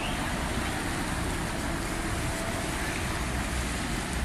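Motorboats passing on a canal: a steady engine drone with the wash of water.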